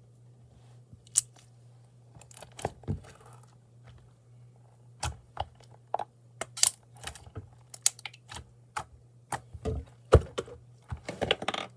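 Slime being squeezed and worked by hand, giving irregular sticky clicks and pops that come more often toward the end.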